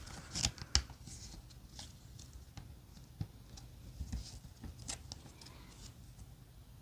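Faint handling noises: scattered small clicks, taps and rustles as a small flashlight and its packaging are handled on a table.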